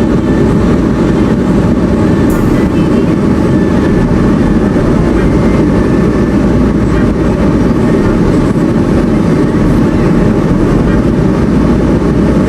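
Steady, loud road and engine rumble inside a moving car, with no distinct events.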